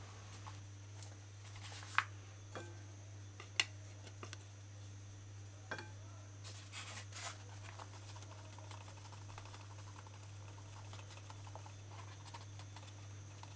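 Flour being measured into a glass mixing bowl with a metal scoop: a few light taps of the scoop against the bowl and soft rustling of the paper flour bag as flour is poured. A steady low hum lies underneath.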